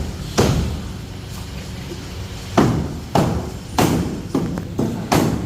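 Irregular sharp knocks and bangs from a new ultrasonic cleaner being unpacked: one knock, a pause of about two seconds, then six more in quick succession, over a low steady hum.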